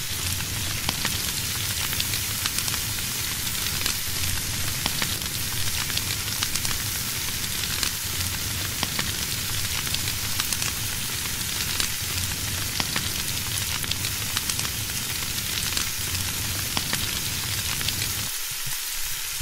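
Bacon frying: a steady sizzle with frequent small pops and crackles.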